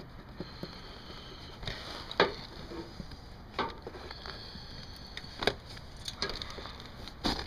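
Scattered light knocks and taps from handling at an aluminium eavestrough, about six spread over several seconds, the sharpest about two seconds in, over low background noise.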